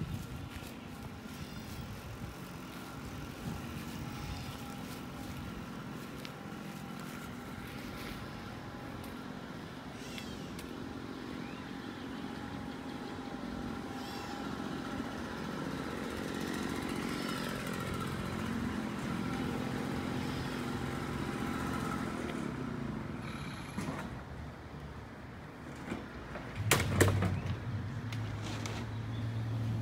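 Steady street and traffic noise. Near the end a louder low engine hum comes in with a few sharp knocks.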